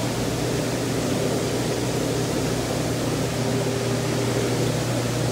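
Steady machinery noise: a low hum under an even hiss, unchanging throughout.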